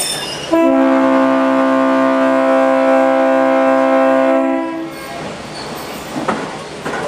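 Locomotive air horn sounding one long blast, a steady chord of several notes, from about half a second in until it cuts off near five seconds. The rail car's running rattle is underneath it, with a few clanks after.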